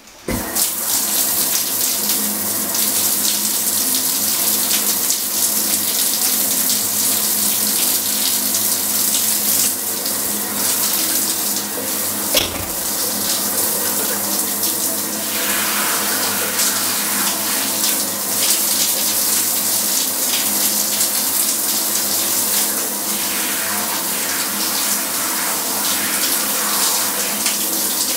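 Shower spray running steadily in a tiled shower stall, switching on suddenly at the start. A single short knock comes about twelve seconds in.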